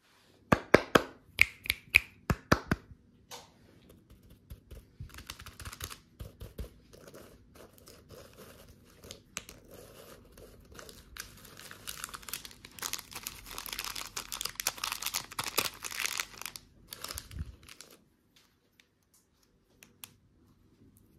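A quick run of about ten sharp taps over the first few seconds, then gold-foil-wrapped chocolate coins being gathered and handled, the foil crinkling and rustling, loudest a little past the middle. It goes almost quiet for the last few seconds.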